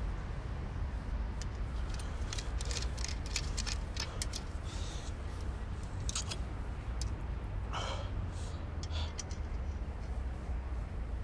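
Steady low background rumble, with a run of small, sharp crackling clicks through the first two-thirds.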